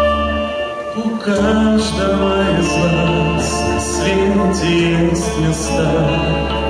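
A man singing into a stage microphone over instrumental accompaniment. His voice comes in about a second and a half in, after a short instrumental passage.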